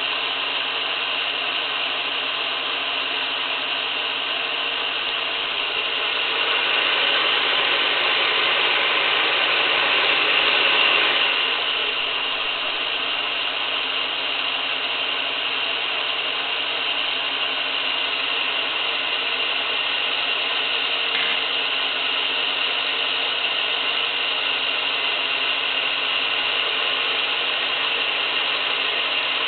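MN-61 magnetic wire recorder rewinding: a steady mechanical whir from its drive and spooling wire, a little louder from about six to eleven seconds in.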